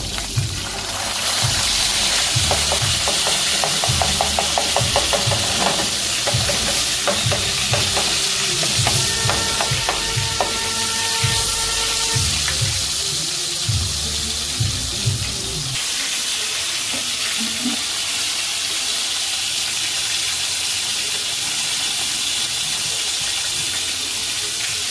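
Hot oil sizzling in a nonstick frying pan around a frying burger patty, with a fork clicking and scraping against the pan in the first half. A steady pitched tone sounds for about three seconds near the middle.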